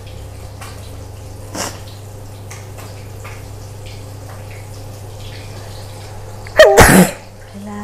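A woman sneezes once, loudly, near the end: a short voiced 'achoo' from a head cold. A low steady hum runs underneath.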